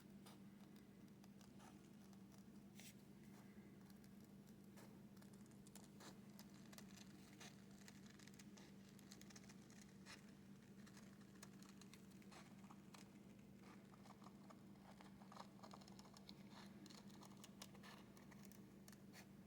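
Faint, repeated small snips of scissors cutting out a drum-head circle by hand, over a steady low hum.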